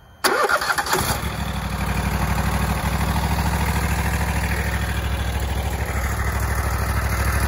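Kohler engine on a Wright stand-on mower being cranked and starting: a sudden burst of rapid strokes for about a second, then it catches and runs steadily.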